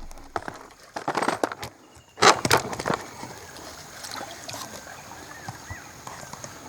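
A few sharp knocks and clatter in the first three seconds, the loudest two close together about halfway through that stretch, followed by a quiet background with a faint steady high-pitched tone and faint chirps.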